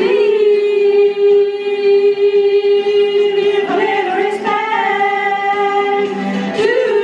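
Two women singing karaoke into handheld microphones. One long held note runs for about the first half, then a second sustained note follows about four seconds in.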